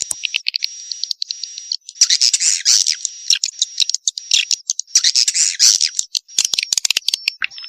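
Swiftlet chick calling sound: bursts of rapid, high chittering and clicks, broken by short gaps, with a thin steady high tone beneath parts of it.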